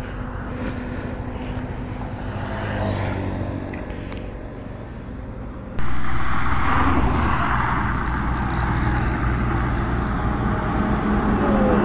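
A motorcycle engine running steadily at low speed. Then, after an abrupt jump about halfway through, louder steady road traffic noise from vehicles on the highway.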